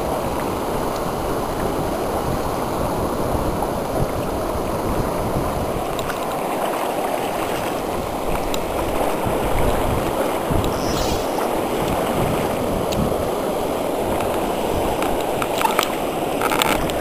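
Fast-flowing river current rushing steadily, with a few brief splashes near the end as a trout is brought into a landing net.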